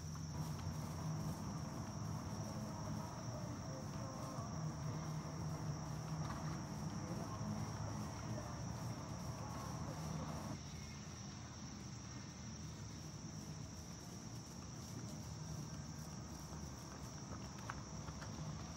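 Crickets trilling in a steady, high-pitched chorus over low background noise.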